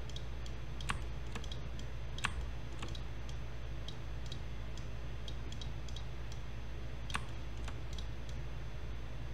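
Scattered computer mouse and keyboard clicks, a few at a time with gaps between, over a steady low hum.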